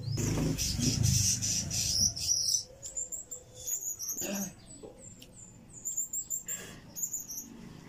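Close eating and drinking noises for the first two seconds or so, then short runs of quick, very high chirps, four or five pips at a time, recurring every few seconds.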